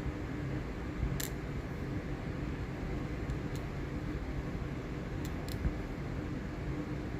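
Handling of a laptop's plastic case while trying to get its bottom cover off: a few faint sharp clicks over a steady low background hum.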